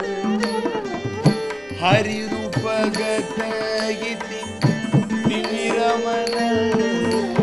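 Carnatic classical music played live: a drum (mridangam) strikes rhythmic strokes under a sustained melody that wavers and slides in ornamented turns.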